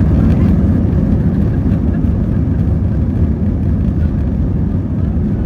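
Steady low rumble of Airbus A321 cabin noise: the jet engines and air handling, heard from inside the passenger cabin.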